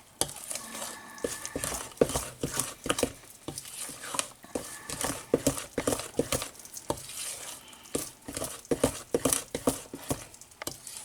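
Cornbread muffin batter being stirred by hand in a bowl: a string of irregular clicks, knocks and wet scrapes from the utensil against the bowl.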